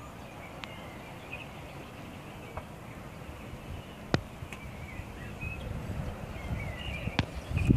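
Outdoor ambience: faint chirping of small birds over a steady low rumble, with a few sharp clicks, the loudest about four seconds in and another near the end.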